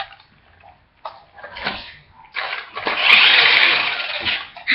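A toy car's small electric motor whirring loudly for about two seconds, starting a little past halfway, after a few soft knocks.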